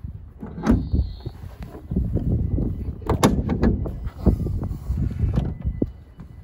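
A few sharp knocks and clunks over an irregular low rumble, typical of a car door or bonnet being handled.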